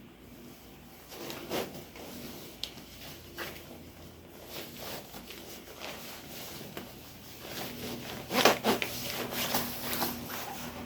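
Rustling and rubbing of a long coat's fabric as it is handled, with scattered small clicks, getting busier and louder near the end.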